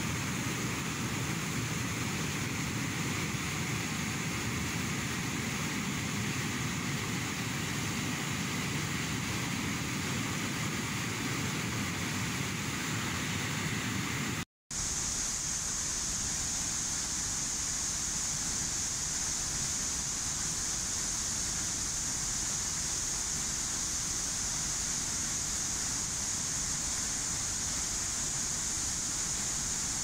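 Steady rushing of a swollen, muddy river in flood, water churning over boulders. After a brief silent break about halfway, a flooded waterfall pours heavily, with a brighter, hissier sound.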